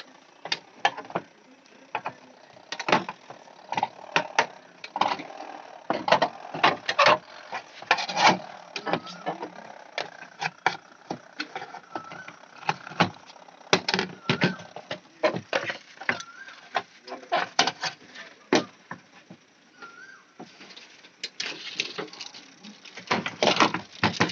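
Irregular clicks, knocks and rattles of hands and tools handling the plastic and metal parts of a washing machine while its timer is being changed. The clicks come thicker near the end.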